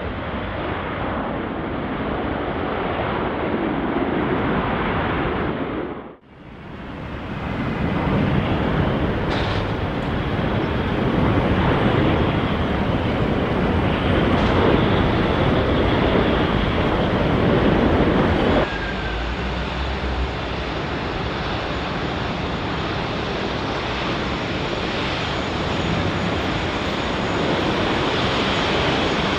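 Jet noise of Airbus A380 airliners on final approach and touchdown: the steady rush of their four turbofan engines. It dips out briefly about six seconds in and changes abruptly about two-thirds of the way through, where the clips are cut.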